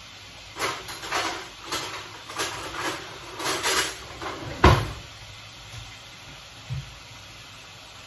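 Kitchen work sounds: a run of short scrapes and rustles, then one loud knock a little past halfway and a lighter knock later, over a faint steady hiss.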